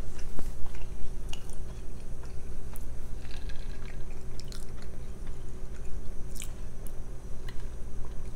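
Close-miked mouth sounds: chewing, then sips and swallows through a straw from a metal tumbler, as small wet clicks over a low steady hum.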